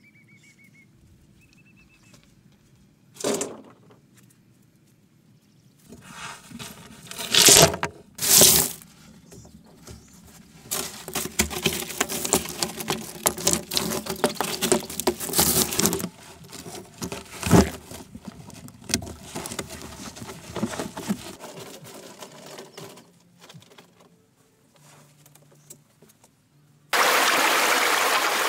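Broken stones clattering and scraping as they are handled and laid into a pit, with a few louder knocks of rock on rock. Near the end a steady rush of water pouring from a bamboo pipe starts suddenly.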